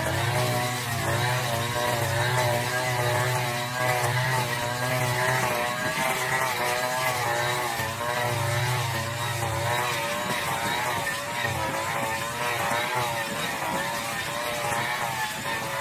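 Brush cutter engine running hard while cutting thick, tall grass, its pitch wavering up and down as the load changes. A heavier low hum sits under it for about the first five seconds and again from about eight to ten seconds in.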